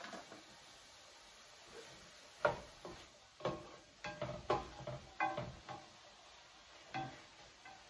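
Metal slotted spoon stirring chopped vegetables in a stainless steel sauté pan, knocking and scraping against the pan in a run of clinks with a brief ring.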